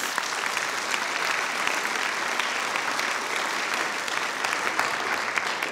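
A large seated audience applauding steadily, the clapping tailing off near the end.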